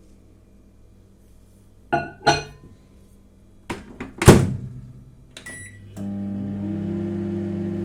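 Microwave oven being loaded and started: two knocks, then a few more ending in a loud door shut, short keypad beeps, and about six seconds in the oven starts running with a steady electric hum.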